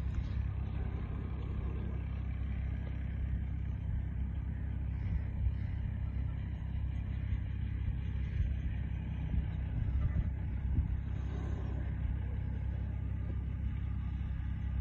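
Wind buffeting the microphone: a steady low rumble that flickers in level, with no speech.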